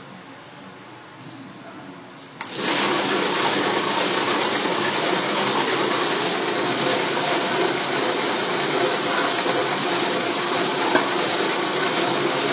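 Drill press switched on with a click about two and a half seconds in, then its motor running steadily with a loud, even whir, driving the dough mixer.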